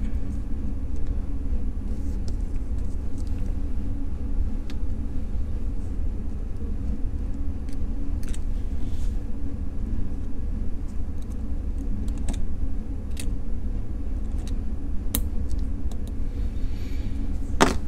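Steady low background rumble, with a few faint clicks of metal tweezers on a plastic watch case as a spacer ring is fitted into it.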